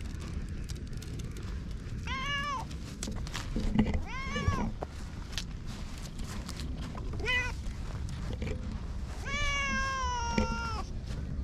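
Cream-coloured cat meowing four times: three short meows, then a long, drawn-out meow near the end.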